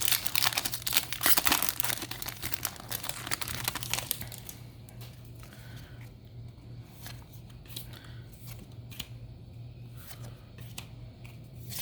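Crinkling and tearing of a Yu-Gi-Oh! booster pack's foil wrapper being opened for about four seconds, then quieter scattered ticks and rustles as the cards are handled.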